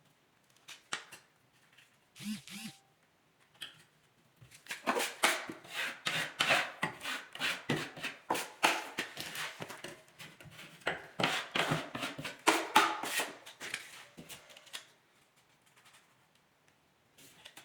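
Quick, irregular scraping strokes of hand-tool work on drywall, several a second, for about ten seconds, after a few isolated clicks.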